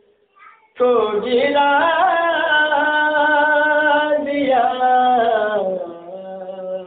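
A man's unaccompanied voice singing a drawn-out line of a devotional Urdu recitation. It enters loudly about a second in with long held notes, sings a second phrase, then continues lower and softer near the end.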